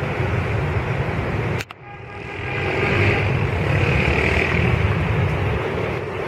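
ATR turboprop airliner rolling on the runway, its engines and propellers running, mixed with wind noise on the microphone. The sound cuts out abruptly a little under two seconds in, then builds back up and swells.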